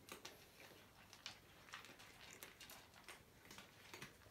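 Faint, irregular crunching and clicking of several cats chewing dry kibble from bowls.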